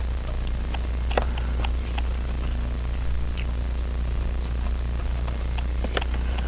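A steady low electrical or room hum, with a few faint, light clicks of small tools touching watch parts as the balance is fitted into the movement.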